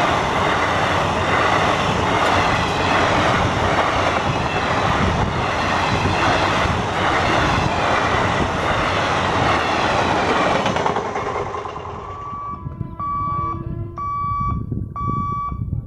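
Malda Intercity Express coaches rolling past close by with a steady rumble and rhythmic wheel clatter, fading away about eleven seconds in as the train clears. Then an electronic warning beeper starts, a steady repeated beep about one and a half times a second, typical of a level-crossing gate alarm.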